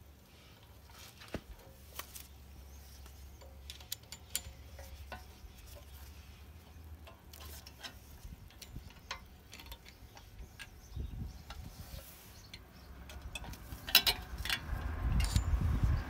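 Small metallic clicks and ticks of a BMW E36 handbrake-shoe retaining pin and its spring being pushed in and turned a quarter turn with a small screwdriver. There is a sharper click near the end, while a low rumble builds.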